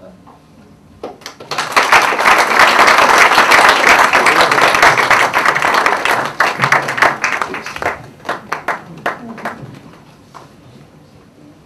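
Audience applauding in a hall. It starts about a second in, is at its fullest for several seconds, then thins out to scattered single claps that die away.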